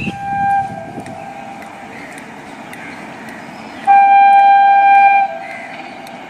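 Horn of an approaching Indian Railways train: a short blast of about half a second, then a loud, steady blast of about a second and a half that ends on a slightly lower note.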